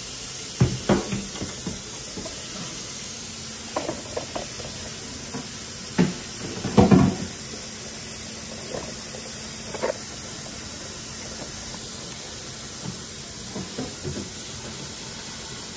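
Scattered knocks and clunks of household items being handled at a kitchen sink and countertop, the loudest cluster about six to seven seconds in, over a steady background hiss.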